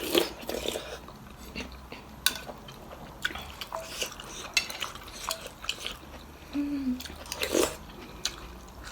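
Kitchen utensils and dishes clinking and knocking: a series of short, irregular clatters of spoons and containers being handled.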